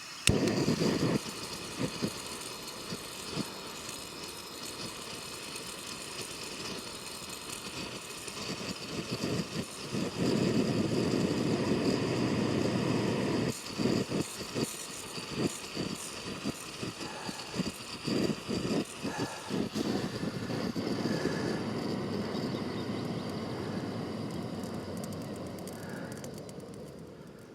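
Gas canister camping stove burner running with an uneven rushing roar that surges, drops out and sputters repeatedly through the middle, then dies down near the end. The burner is flaring, which he suspects comes from an overfilled gas canister.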